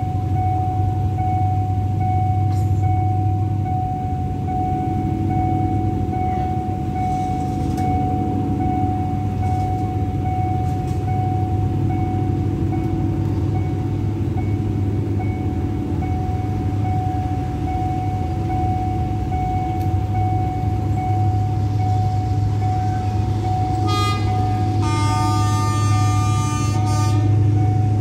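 Level-crossing warning bell ringing on one steady tone over a constant low rumble. Near the end, freight train 725's horn gives a short toot and then a blast of about two seconds.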